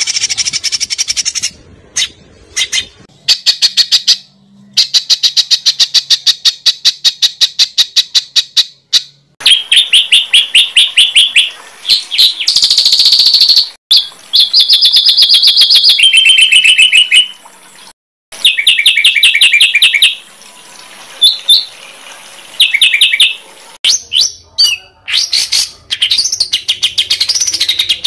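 Songbird song from a masteran tutor recording: strings of sharp, loud repeated notes, about five a second, alternating with faster trills, in separate phrases broken by short gaps.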